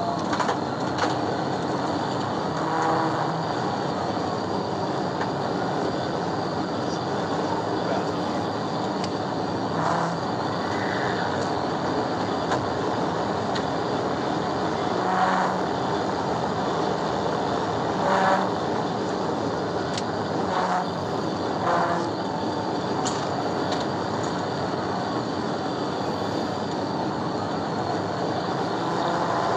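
Steady road and wind noise from inside a Dodge police cruiser running at about 115–125 mph, with a few short bumps about halfway through and later on.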